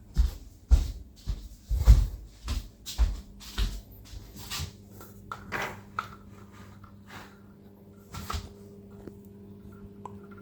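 A series of soft knocks and thuds from things being handled, about two a second for the first few seconds and then sparser, over a steady low hum.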